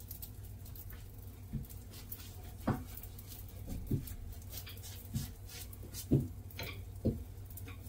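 Kitchen work: about seven light, irregular knocks and taps of utensils or dough on a hard surface, over a steady low hum.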